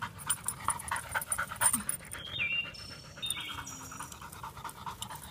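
A yellow Labrador retriever panting quickly as it runs, in fast, even breaths. Two or three brief high chirps come in about halfway through.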